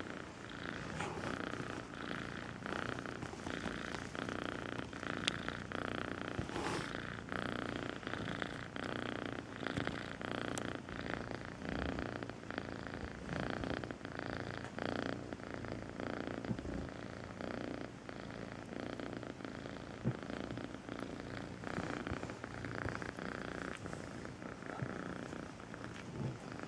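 Young grey-and-white tabby cat purring close up, in regular swells that rise and fall with its breathing.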